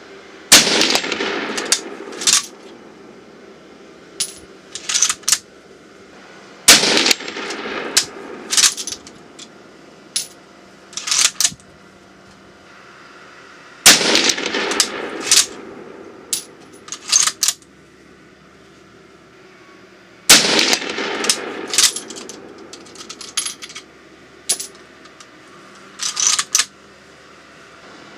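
Four rifle shots about six and a half seconds apart, each with a short echoing tail, from a 1944 Tula M44 Mosin-Nagant carbine firing 7.62x54R Bulgarian light ball. Quieter sharp clicks and knocks come between the shots.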